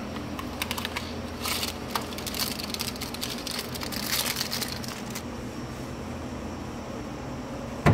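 Light crackling and clicking as small steel ball bearings and their plastic packaging are handled and pressed into a clear acrylic fidget spinner, stopping about five seconds in and leaving a steady low room hum.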